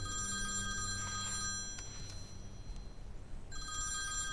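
Mobile phone ringing with an electronic ringtone: two rings of about two seconds each, separated by a pause of a little under two seconds.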